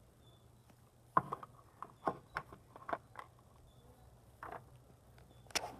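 Irregular light crunches and clicks of footsteps through grass and dry leaves, a handful of soft steps with quiet gaps between them.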